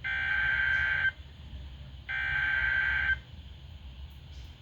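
Electronic alert alarm beeping: a buzzy, high steady tone held about a second, then about a second of pause, twice. An emergency alert receiver sounding the attention alarm for an incoming weather warning.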